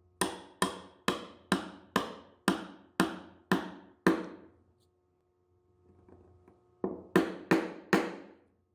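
Hammer tapping on wood in sharp, evenly paced knocks, about two a second, each with a short ring. About nine blows, a pause of roughly two seconds, then four more, over a faint low hum.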